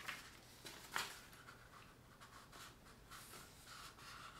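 Faint rustling of a paperback book's pages being turned and handled, with a light tap about a second in.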